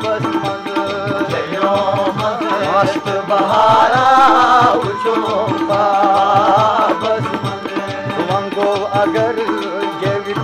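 Kashmiri folk song music: tabla keeping a steady, even beat under a wavering melody line.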